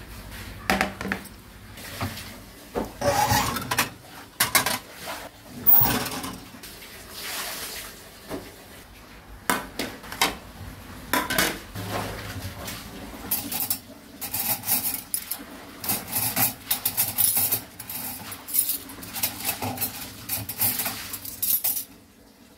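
Metal cutlery and dishes clinking and clattering irregularly as they are handled and put into a dishwasher rack, with many sharp clinks and knocks.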